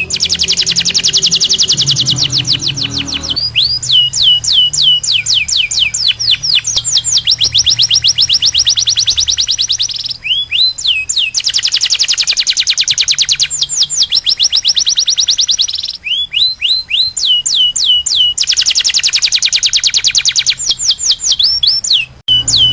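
Domestic canary singing a loud tutoring song: long, very fast high trills alternating with runs of swooping whistled notes that drop in pitch, repeated phrase after phrase.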